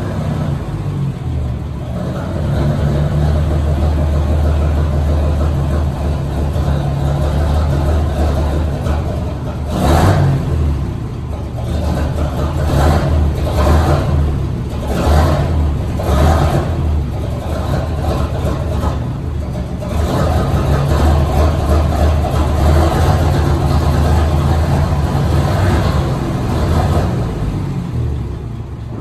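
The engine of a 1956 FWD fire truck running with a steady low rumble, revved in several short blips between about ten and sixteen seconds in, then settling back to a steady run.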